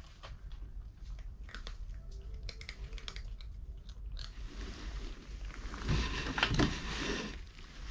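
Cats crunching dry kibble: a steady run of small, quick crunches. About four and a half seconds in, a louder burst of noise joins them and lasts about three seconds.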